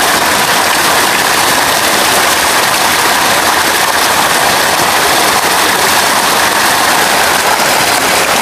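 Water spouts pouring from a stone wall into a pool: a steady, loud rush and splash of falling water.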